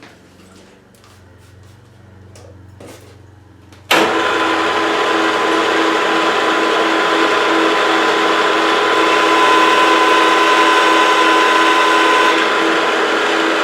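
Milling machine spindle switched on about four seconds in, set to about 1780 rpm with a 3/4 inch high-speed-steel end mill, then running steadily and loudly with a few steady tones over a hiss. Before it, only a faint hum and a few light clicks.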